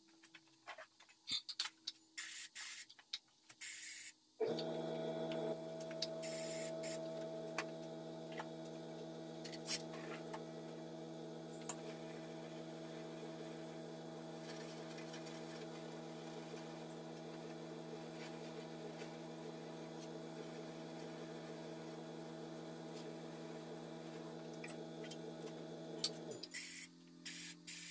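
A few clicks and knocks of handling, then a steady electric-motor hum with a faint hiss starts about four seconds in and runs until it cuts off suddenly near the end.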